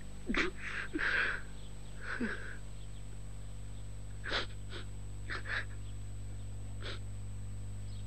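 A man's short breathy gasps and sniffs, about seven of them spread irregularly through the first seven seconds, the loudest near the start. They sit over a steady low hum.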